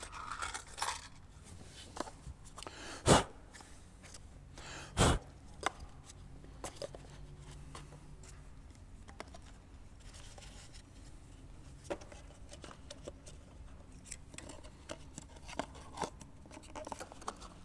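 Handling and rummaging sounds: two sharp knocks about 3 and 5 seconds in, then scattered light clicks and rustles as plastic cups are set under an aircraft engine's fuel injector lines.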